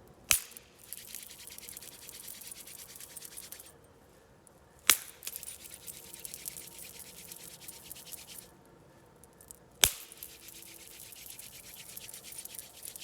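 Three loud single hand claps about five seconds apart. After each clap come a few seconds of fast, steady rubbing, the palms scrubbed briskly together to build heat in the hands.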